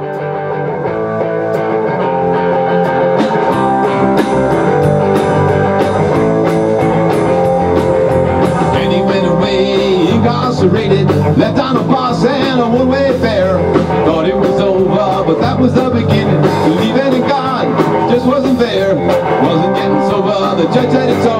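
A rock band playing live on electric guitar, electric bass and drums. It opens on sustained ringing chords, and the full band with cymbals comes in about nine seconds in, with a wavering melody line over the top.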